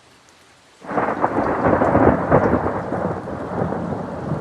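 Squall-line thunderstorm: heavy rain and wind, cutting in suddenly about a second in after near silence and staying loud.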